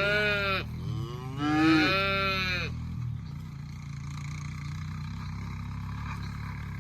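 Cattle mooing: two drawn-out calls, the second from about a second and a half in, over a steady low engine hum.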